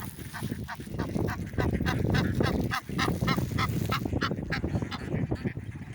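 Waterfowl honking in a fast run of short, goose-like calls, about four a second, over a low rushing noise; the calls stop near the end.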